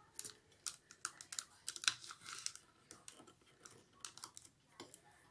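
Rolled newspaper tubes being woven in and out of paper stakes: a string of faint, irregular light clicks and paper rustles.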